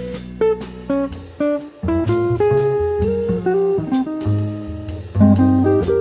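Jazz band recording with the guitar to the fore, playing a line of quick, short notes over a bass part.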